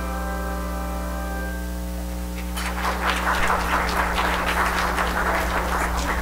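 Handbell choir's final chord ringing and fading away over the first two seconds, then the congregation applauding from about two and a half seconds in.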